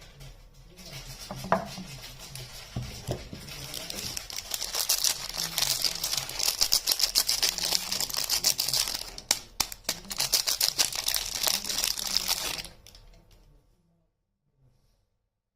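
Soap packaging being unwrapped by hand: a dense run of crinkling and tearing that stops near the end.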